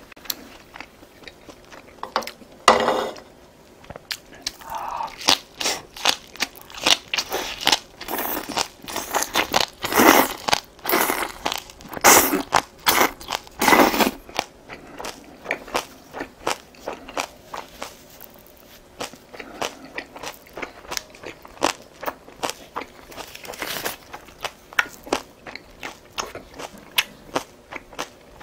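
A person chewing food close to a clip-on microphone. Many short, sharp mouth clicks and bites are densest and loudest through the middle stretch and thin out toward the end.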